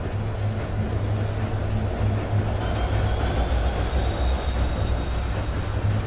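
Modular synthesizer music: a dense, noisy drone over a steady deep bass, joined about two and a half seconds in by a thin high tone that slowly rises.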